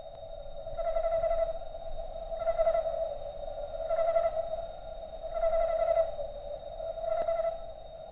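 Eerie electronic drone sound effect: a steady mid-pitched hum with higher tones that swell in and fade out about every one and a half seconds. One faint click comes near the end.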